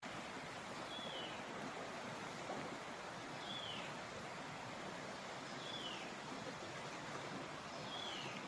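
Steady rain hiss with a bird's short high call, sliding downward, repeated four times about every two seconds.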